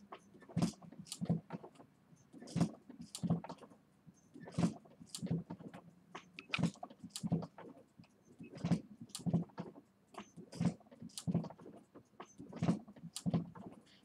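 Repeated sharp knocks or taps in a regular rhythm, mostly in pairs about every two seconds, over a low steady hum.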